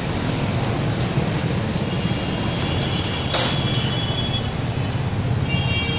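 Steady rumble of street traffic. About three seconds in there is a brief sharp hiss, with a thin high squeal around it.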